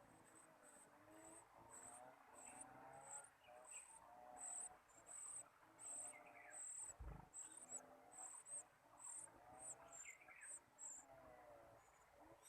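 Nestling birds cheeping, a run of short, very high chirps about twice a second, with fainter wavering calls that rise and fall in pitch lower down.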